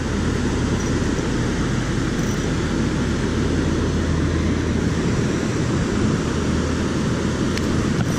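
Steady rushing roar of water pouring through a concrete dam spillway.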